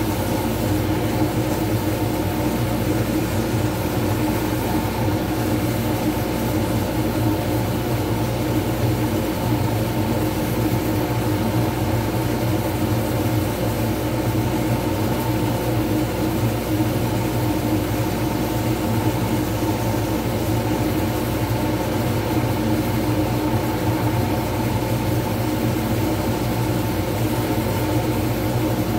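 Wood lathe running at a steady speed, a continuous motor hum, while a resin pen blank spins against a hand-held sanding pad.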